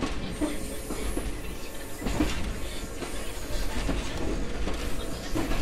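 JR 123 series electric railcar running along the line, a steady rumble with its wheels clacking over rail joints several times.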